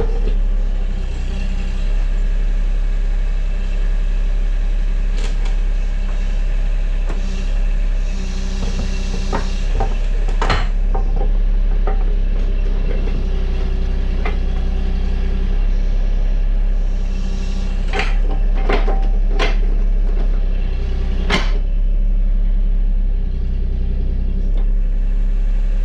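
Terex TC25 mini excavator's diesel engine running steadily while its S40 half-automatic quick coupler picks up the S40-to-S30 adapter plate. Sharp metal clanks ring out, one about ten seconds in and four more close together later, as the coupler's pin and latch engage the adapter and it locks itself.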